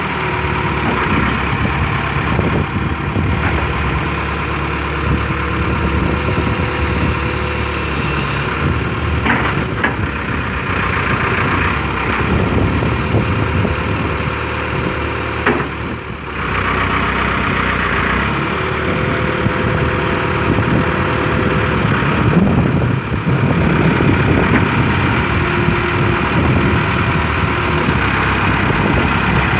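Caterpillar 416B backhoe loader's diesel engine running steadily, with a brief drop in level about halfway through, after which it is a little louder.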